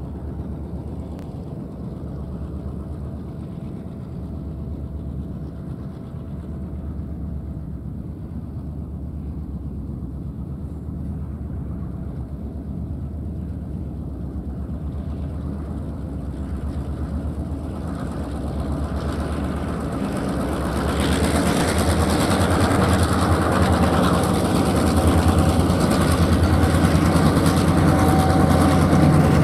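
Diesel freight locomotive's engine running steadily as the train approaches, growing louder over the last ten seconds or so, with the rolling noise of the wagons joining in as it draws close.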